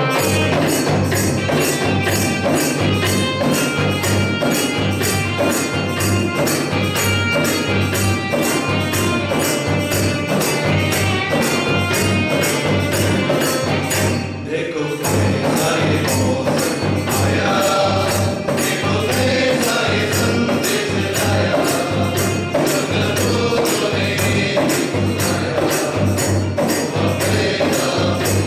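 A Malayalam Christmas carol performed live by a men's choir with electronic keyboard, a large bass drum and tambourine keeping a steady beat. The music dips briefly about halfway through.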